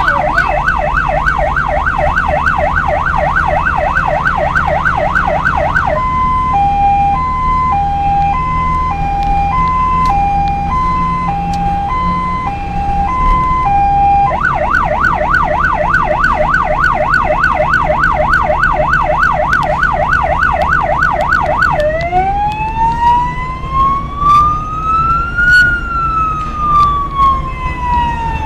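An electronic vehicle siren cycling through its tones: a fast yelp of about three sweeps a second, then a two-tone hi-lo for several seconds, then the yelp again, then a slow wail rising for a few seconds and falling away before the yelp returns near the end. A steady low engine and road rumble runs underneath.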